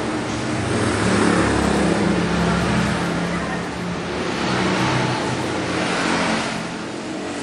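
Road traffic passing: vehicle engines swell and fade, loudest about a second in and again around five seconds.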